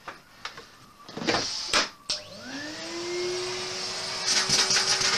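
Numatic Henry canister vacuum cleaner switched on about two seconds in, its motor spinning up to a steady whine while the rush of suction builds. A few knocks and bumps come before it starts.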